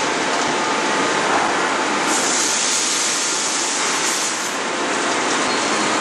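Steady, even machinery noise of a hot-forging line at the roller table carrying a glowing billet, with no hammer blows. A hiss rises about two seconds in and dies away about two seconds later.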